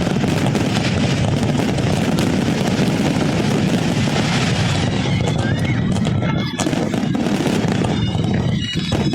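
A fireworks display: dense, continuous crackling and bangs over a heavy rumble, with a few short whistles after about five seconds.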